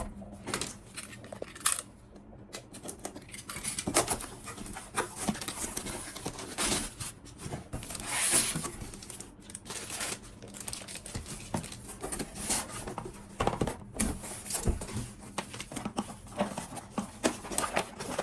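Laptop packaging being opened and handled: irregular clicks, crinkling and rustling of cardboard and plastic, with a longer tearing rustle about eight seconds in.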